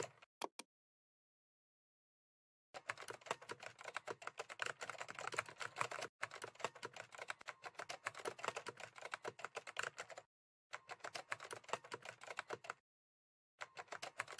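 Rapid typing on a computer keyboard: dense runs of key clicks starting about three seconds in, broken by two short pauses.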